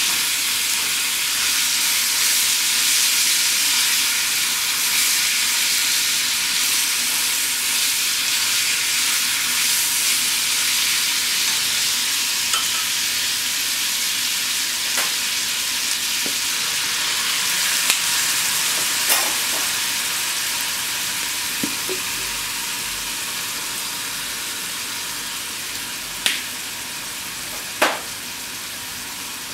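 Thinly sliced beef and onion sizzling in a small frying pan over a gas flame: a steady hiss that slowly dies down. A few sharp clicks come in the second half.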